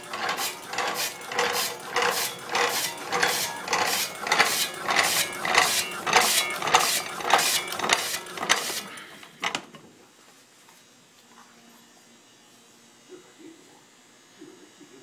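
MIKUNI HL-II automatic stacking ham slicer running, its rotating blade cutting ham slice after slice in an even rhythm of about two and a half strokes a second. The machine stops about two-thirds of the way through, leaving only faint handling sounds.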